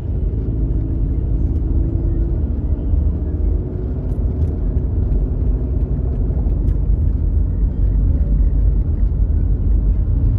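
Steady low rumble of a car driving in city traffic, engine and tyre noise heard from inside the cabin.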